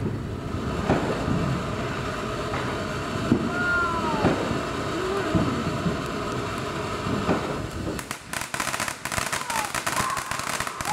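A ground fountain firework spraying sparks with a steady hiss; about eight seconds in it breaks into rapid crackling pops.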